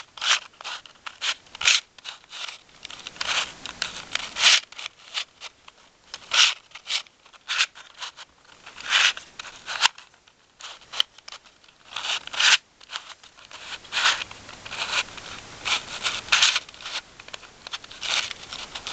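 A Square-1 puzzle's plastic layers being twisted and sliced rapidly by hand to scramble it. It makes quick, irregular clicks and scraping as the pieces slide past one another.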